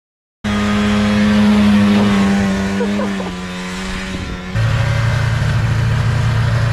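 Snowmobile engine running at steady high revs for about four seconds, its pitch sagging slightly near the end, then an abrupt switch to a snowmobile idling close by with a lower, steady note.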